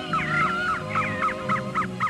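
Organ playing sustained chords over a stepping bass line, with birds giving quick downward-sweeping chirps, several a second, on top.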